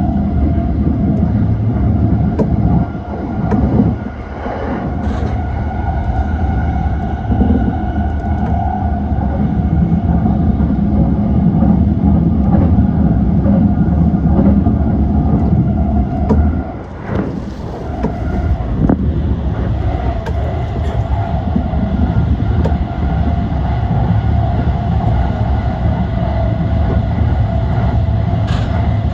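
E235 series electric train running along the line: steady rumble of wheels on rail with a held hum of pitched tones and scattered short clicks, dipping briefly in loudness twice.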